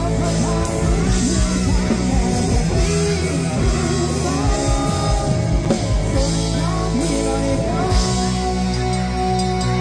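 Rock music: a band with guitar and a singer, settling into a long held chord near the end.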